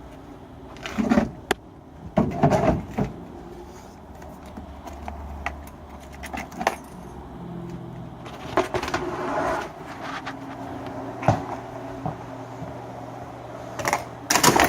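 Pieces of scrap metal clinking and clattering as they are handled, in irregular knocks and jangles, over a faint low hum.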